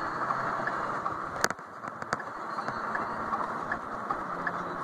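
Steady hum of a car heard from inside the cabin, with a few sharp clicks about a second and a half and two seconds in.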